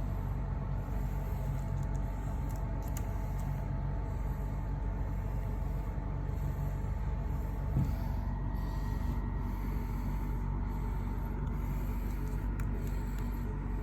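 Steady low background hum and rumble with faint steady tones, and a single soft knock about eight seconds in.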